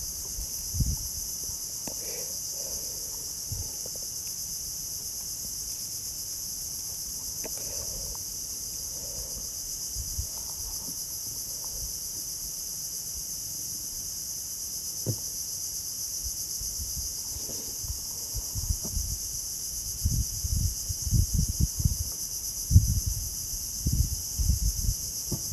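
Steady high-pitched chorus of insects droning without a break, with low bumps on the microphone near the end.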